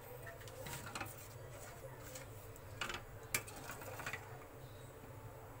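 Faint scattered ticks and small pops from oil heating on a nonstick tawa over a gas flame at full heat, over a steady low hum; the sharpest tick comes a little after three seconds in.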